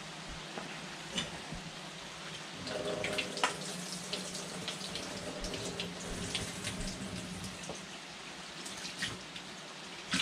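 Kitchen faucet running into a sink as a pot lid is rinsed out, with light clinks and knocks. The water runs harder, with a steady hum, for a few seconds in the middle.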